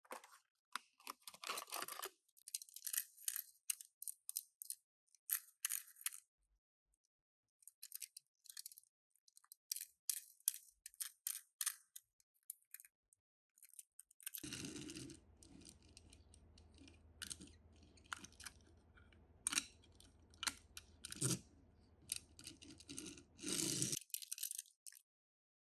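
Plastic packaging and small toys being handled: scattered crinkles, clicks and crackles in short clusters. A faint low hum sets in about halfway through and stops shortly before the end.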